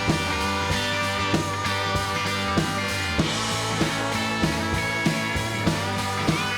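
Rock music with guitar and a steady drum beat, about three beats every two seconds.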